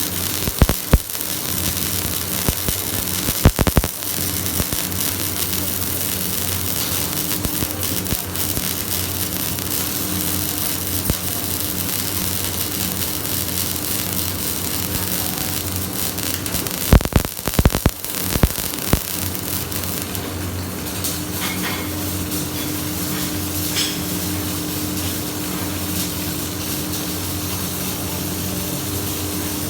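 Electric arc welding: a steady hiss over a low hum. A few sharp knocks come in the first four seconds and again about seventeen to nineteen seconds in.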